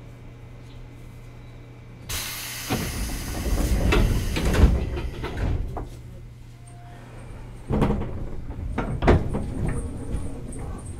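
Inside a JR East 205 series commuter train: a low steady hum, then about two seconds in a sudden loud hiss of compressed air with heavy thuds as the pneumatic sliding doors close. Near the end there are further heavy knocks as the train gets under way.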